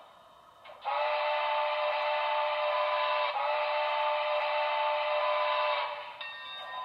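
Sound-equipped model steam locomotive (Broadway Limited Santa Fe Blue Goose 4-6-4, Paragon 4 sound system) blowing its chime steam whistle through its onboard speaker: two long blasts back to back, thin with no low end. Near the end it drops back to a quieter steady running sound.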